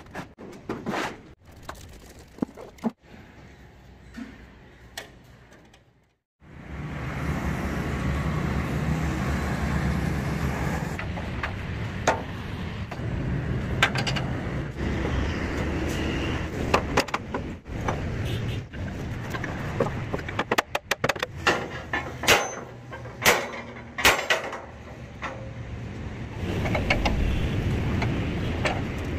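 Steel channel beams clanking as they are handled and set down, then, after a short break, a steady low rumble with sharp metal knocks and clanks on steel truck chassis rails, coming thick and fast in the second half.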